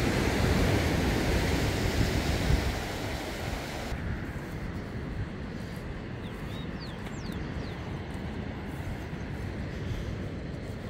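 Sea surf on a rocky shore with wind buffeting the microphone, loud for the first few seconds. About four seconds in, the sound drops abruptly to a quieter, steady low rumble with a few faint high chirps.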